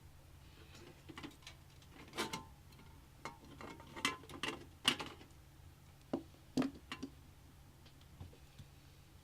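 Scattered light clicks and taps of hardware being handled and fitted into a computer case, a dozen or so irregular ones, the loudest near the middle and about two-thirds through.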